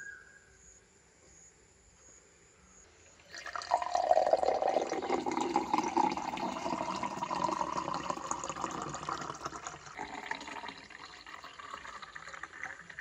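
Watermelon juice being poured into a drinking glass. It starts about three seconds in as a loud, splashy stream, and its pitch rises as the glass fills.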